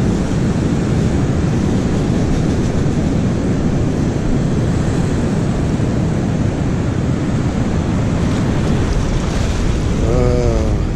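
Steady rush of ocean surf with wind buffeting the microphone. A brief warbling tone sounds about ten seconds in.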